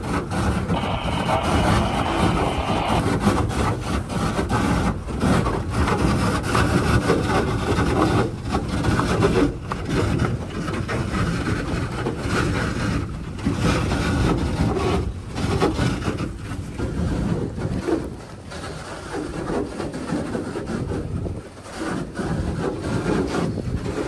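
Boat under way: a continuous noisy rush of engine, hull and water, dipping briefly every few seconds.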